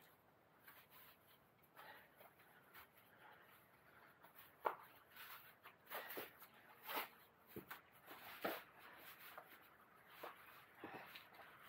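Faint rustling and swishing of a cycling jacket's fabric as it is handled and pulled on, in short scattered swishes with one sharper click a little before halfway.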